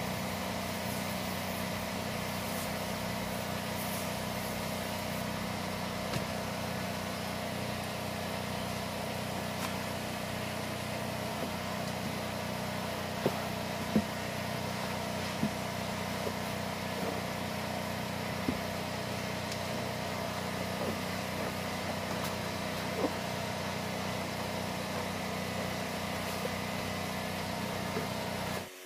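A motor running at a steady hum, with a few light ticks about halfway through.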